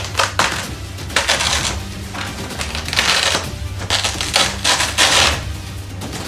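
Cardboard packaging and its plastic strap being pulled and scraped off in several rasping bursts, the longest about three seconds in, over background music.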